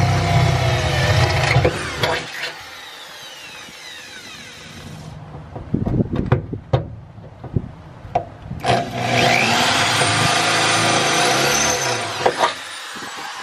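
Ridgid corded electric drill boring into a pickup's steel bed floor. The motor runs, winds down about two seconds in, a few sharp knocks and clicks follow, then it speeds up again with a rising whine about nine seconds in and runs until shortly before the end.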